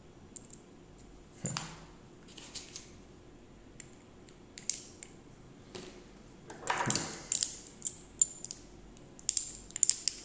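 Hand tools and small metal parts clinking and clattering as they are handled on a table: scattered light metallic clicks, busiest about seven seconds in and again near the end.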